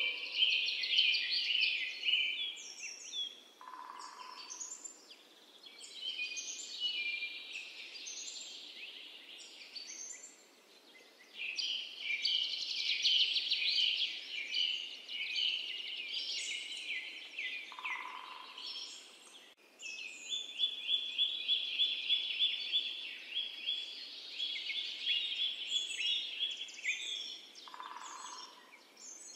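Birdsong ambience: many small birds chirping and trilling in rapid, overlapping phrases, with a short lower call three times, about 4, 18 and 28 seconds in.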